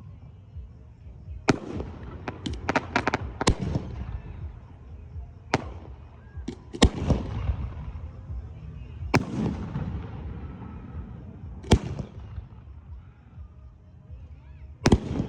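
Fireworks bursting: single sharp booms every couple of seconds, each trailing off into a low rumbling echo, with a quick run of crackling pops about two to three seconds in.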